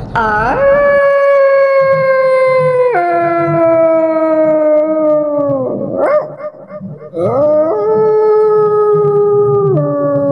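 A dog howling: two long, drawn-out howls, each sliding slowly downward with a sudden drop in pitch partway through, and a short break between them about six seconds in.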